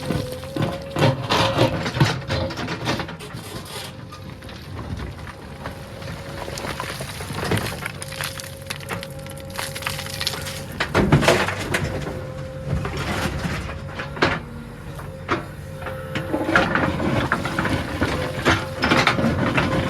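JCB 3DX backhoe loader loading mud: its engine runs with a steady whine, under repeated knocks and crunches from the bucket and the soil. The loudest cluster of knocks comes about eleven seconds in.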